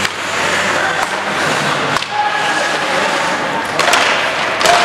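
Ice hockey play: skates scraping on the ice, with several sharp clacks of sticks and puck against the ice and boards over a steady hum of rink noise.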